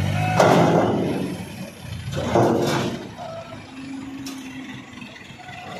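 Heavy machinery working a truck recovery: two loud rushing, rasping noises, the first about half a second in and the second about two and a half seconds in, over the low hum of running diesel machinery.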